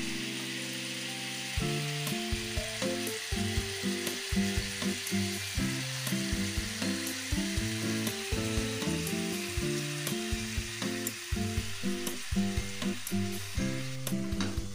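Bata fish sizzling in a pan of bubbling tamarind sauce and oil, a steady hiss. A melody of short held notes runs underneath.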